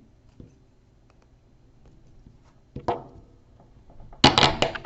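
Parts of a Ferrum Forge Archbishop folding knife being worked together at the freshly oiled pivot: a sharp metallic click about three seconds in, then a rough, grating metal scrape lasting about half a second near the end. It didn't sound good, a sign of tight tolerances at the pivot that calls for more lubrication.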